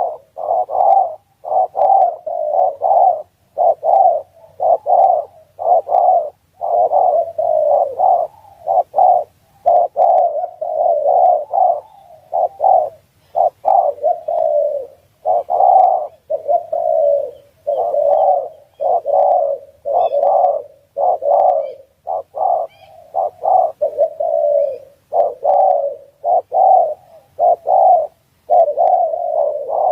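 Spotted dove (tekukur) cooing over and over: a long run of low, throaty coo notes in quick phrases with short pauses between them. This is the call used to lure wild doves in.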